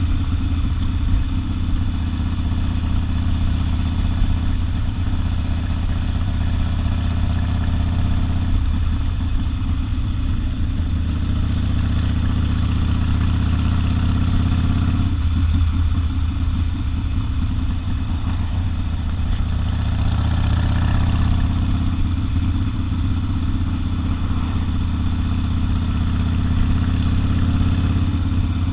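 Harley-Davidson Sportster's V-twin with open exhaust running loud and steady while riding, the engine note shifting a few times along the way.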